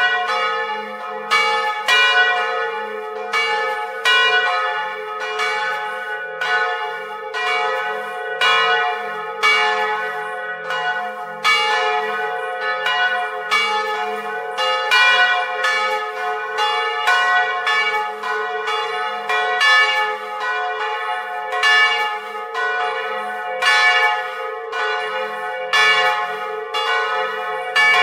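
Two old bronze church bells, one cast in 1772, swinging in full peal and heard up close in the belfry. Their clappers strike unevenly about one to two times a second over a constant ringing hum.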